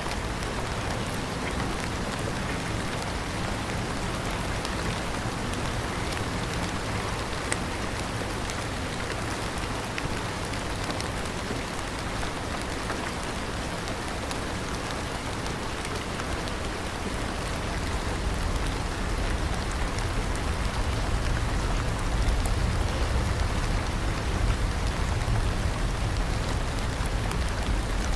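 Steady heavy rain falling on a surface, a dense hiss with scattered drop ticks, and a deep low rumble that swells over the last third.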